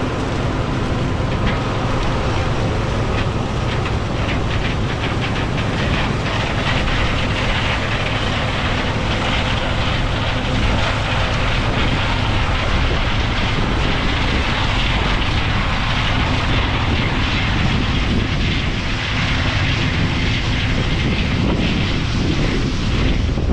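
Large farm diesel engine running steadily under load, with a broad rushing noise of machinery and air over it.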